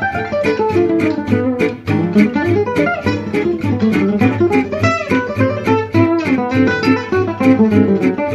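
Jazz manouche guitar solo: fast single-note lead lines on a cutaway acoustic gypsy jazz guitar, over a rhythm guitar's steady pompe chords strummed on every beat.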